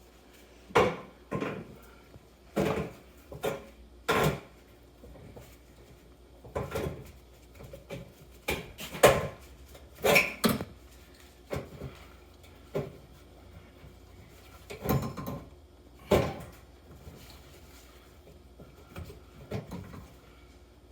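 Tin snips cutting sheet metal, a dozen or so sharp metallic snips and clanks at irregular intervals, the loudest about nine seconds in.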